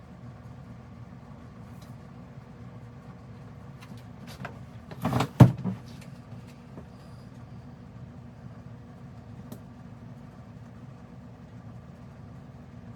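A short burst of knocks and clatter about five seconds in, over a steady low hum.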